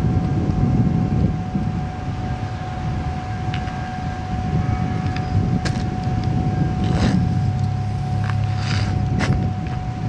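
Outdoor wind buffeting the microphone with a low traffic rumble, under a faint steady whine. A vehicle engine drones for a couple of seconds in the second half, and a few light knocks and clicks come from the pickup's cab being searched.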